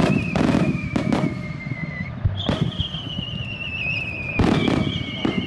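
Daytime fireworks bursting: a series of sharp bangs, with long whistles that glide slowly down in pitch, one fading about two seconds in and the next starting right after.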